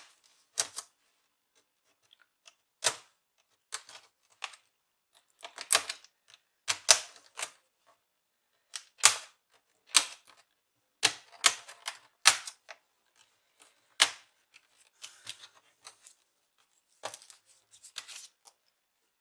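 Sharp clicks and clacks of a plastic laptop casing being handled and pried apart, coming irregularly, about one a second.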